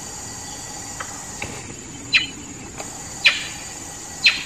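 Red leaf monkey giving short, sharp calls about once a second, each dropping in pitch, growing louder from about two seconds in. A steady high hiss of insects runs underneath.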